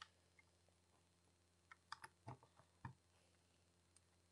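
Faint clicks of Lego bricks being handled and pressed together: a cluster of several small clicks about two seconds in, near silence otherwise.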